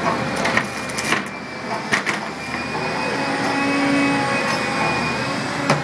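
Ground-drilling rig running, a steady mechanical noise with a few sharp metallic knocks in the first two seconds and another near the end, and a thin steady whine through the middle.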